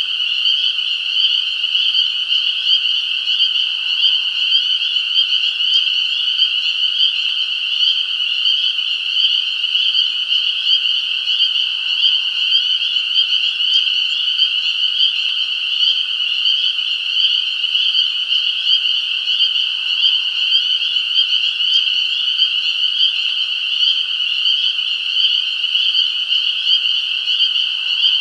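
Dense chorus of many frogs calling at once, a steady high-pitched trilling with no pauses.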